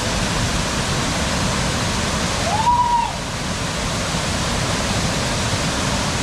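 Waterfall rushing steadily. About two and a half seconds in, a short whistle-like tone rises, holds and falls.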